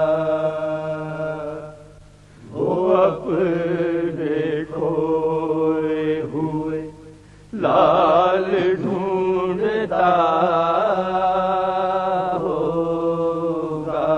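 Male voices chanting an Urdu salam: a group holds a long note, then a solo male voice sings long, ornamented phrases with two short breaks. The long held notes return near the end.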